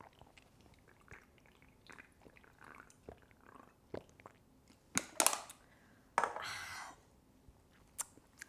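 Close-up chewing of braised pork trotter, with small wet mouth clicks throughout and two louder noisy sounds about five and six seconds in.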